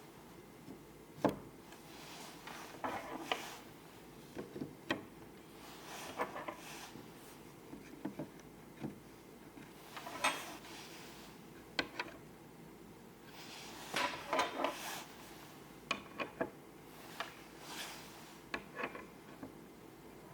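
Hands handling and fitting PC hardware parts: irregular sharp clicks and taps with short bursts of rubbing between them. The loudest click comes about a second in, and a quick cluster of clicks comes around two-thirds of the way through.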